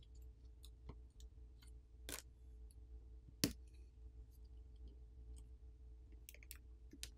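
Faint clicks and light crackling as a thin adhesive-backed wireless charging coil and NFC antenna sheet is pried up with a plastic pry tool and peeled off a smartphone battery. Three sharp clicks come about a second apart, the third the loudest, followed by a few small ticks near the end.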